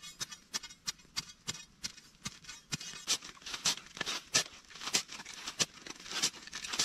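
Light background music with a steady ticking beat, about two ticks a second, the ticks growing somewhat stronger about halfway through.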